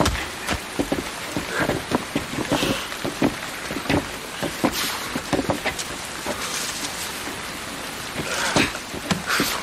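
Steady rain falling, with many sharp taps of drops and several brief louder swishes.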